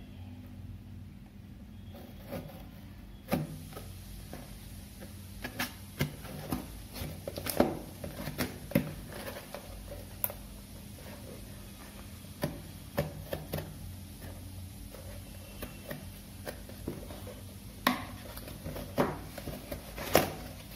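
A paperboard product box being cut open with scissors and handled, its flaps pulled open: irregular clicks, taps and rustles, over a steady low hum.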